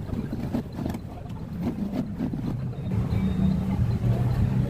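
Low, steady hum of a running engine, with scattered light knocks over it; the hum grows a little louder about three seconds in.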